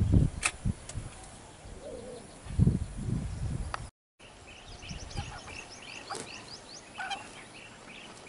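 Water splashing and sloshing as two Asian elephants wrestle in a shallow pond, in a few heavy bursts. After a brief cut to silence about four seconds in, birds call with quick series of short chirps.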